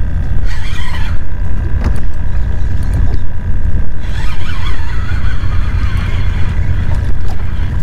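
Steady low wind rumble buffeting the microphone.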